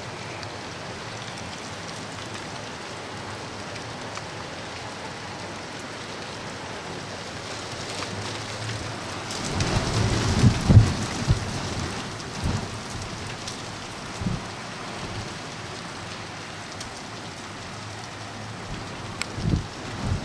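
Freezing rain falling steadily, a constant hiss of rain on surfaces. About halfway through comes a burst of low rumbling, followed by a few short low thumps.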